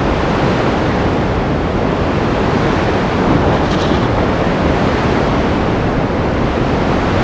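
Storm surf: heavy waves and wind making a dense, steady rushing noise that swells a little about halfway through.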